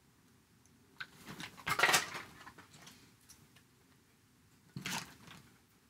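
Hard plastic toy dinosaur figures clattering and knocking onto a tabletop as an armful of them is set down. The loudest clatter comes about a second in, with another brief knock near the end.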